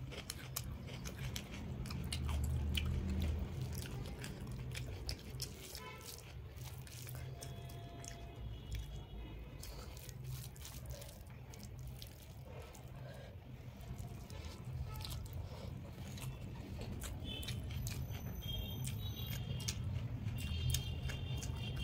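Close-miked eating sounds: a person chewing mouthfuls of rice and curry eaten by hand, with wet mouth clicks and some crunchy bites.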